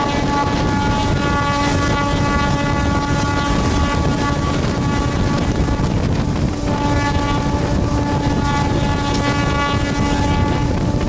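Train horn held in a long, steady blast that stops about five and a half seconds in, then a second long blast about a second later that lasts around four seconds. Underneath is the steady rumble of a moving MEMU electric train, with wind on the microphone.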